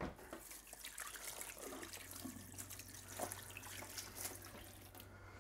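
Kitchen tap running into the sink with splashing, turned off about five seconds in.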